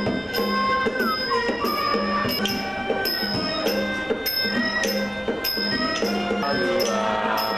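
Southeast Asian traditional ensemble playing: a khim hammered dulcimer struck with sticks, two-string bowed fiddles, a flute and a hand drum. Sustained, gliding melody lines over a steady low tone, with a bright ringing metallic stroke marking an even beat about every two-thirds of a second.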